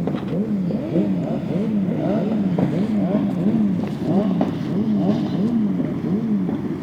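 Off-road motorcycle engines revving up and down over and over, their pitch rising and falling about twice a second, with several bikes running at once.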